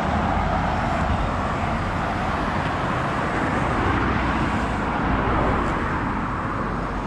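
Road traffic: cars driving past close by on the road, a steady rush of tyre and engine noise.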